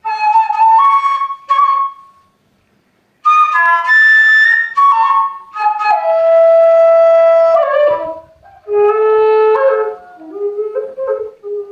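Sundanese bamboo flute (suling) playing a sad melody in short phrases. There is a brief pause about two seconds in, a long held note around the middle, and the line settles onto lower notes near the end.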